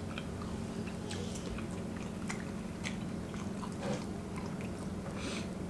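People chewing mouthfuls of macaroni and cheese, with scattered small wet mouth clicks, over a steady low hum in the room.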